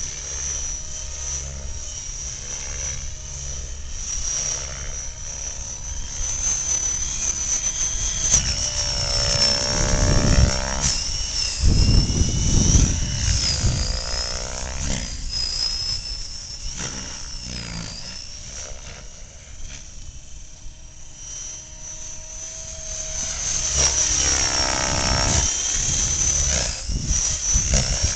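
Electric RC model helicopter flying, its motor and rotor giving a steady high whine. Twice it swoops close, getting louder with its pitch swinging as it passes.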